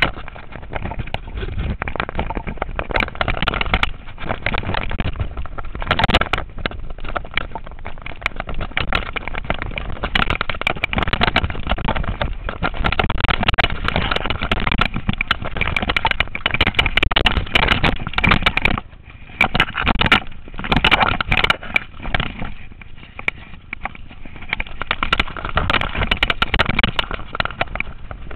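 Mountain bike descending a rough dirt forest trail: a continuous clatter and rattle of the bike and camera over roots and stones, with tyre noise on the dirt. The noise drops briefly a couple of times about two-thirds of the way through.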